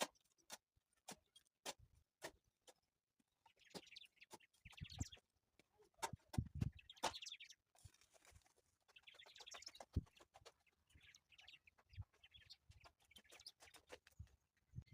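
Faint, scattered sharp knocks, with a few short scraping or rustling sounds in between.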